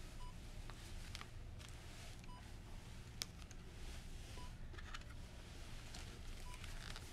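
Hospital bedside patient monitor giving a short single beep about every two seconds, four times in all, over a low room hum. Faint rustling and a sharp click about three seconds in.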